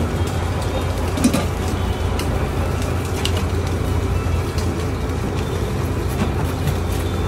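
Belt-driven sugarcane juice crusher running steadily with a low hum while sugarcane stalks are fed between its steel rollers, with scattered cracks as the canes are crushed.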